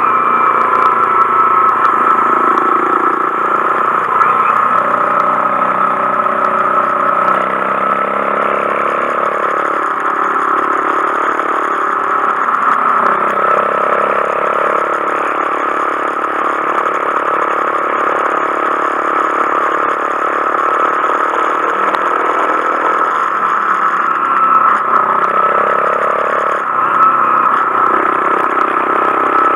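Honda Monkey 125's single-cylinder engine running under way, its revs climbing and then dropping back several times as it shifts through the gears.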